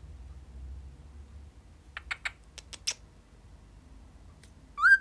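A few short, sharp clicks about two to three seconds in, then a cockatiel begins a whistle near the end, sliding up in pitch.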